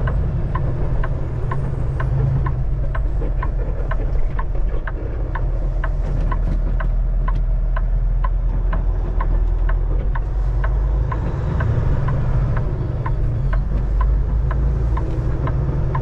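Semi truck's turn signal ticking steadily and evenly over the low drone of the diesel engine inside the cab, as the truck makes a left turn.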